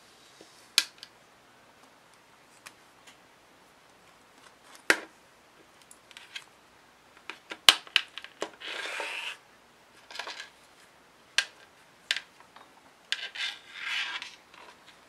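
Wristwatches being handled: sharp clicks and taps of metal watch cases and strap buckles set down on a cutting mat, with a few short bursts of rubbing as the fabric and leather straps are slid and fastened.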